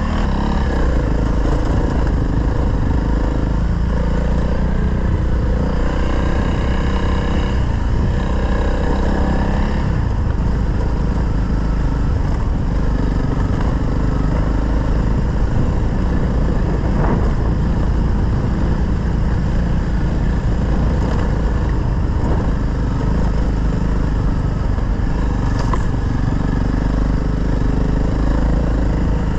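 Single-cylinder dual-sport motorcycle running under way, its revs rising and falling, over a steady rushing noise.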